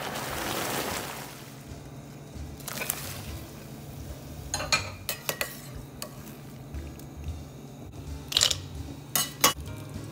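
Water boiling in a stainless steel pot, then metal tongs clinking and scraping against the pot in short clusters as blanched broccoli is stirred and lifted out.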